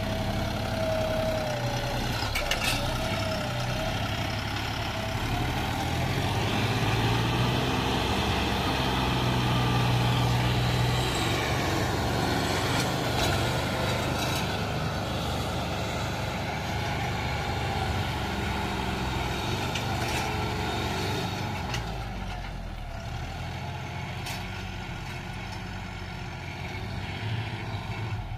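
John Deere 5210 tractor's three-cylinder diesel engine running steadily under load while pulling a subsoiler through hard, dry ground. The engine gets quieter about three quarters of the way through as the tractor moves away, and there are a few sharp clicks along the way.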